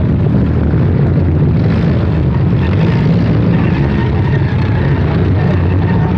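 Several demolition derby cars' four-cylinder engines running and revving together in a loud, continuous rumble.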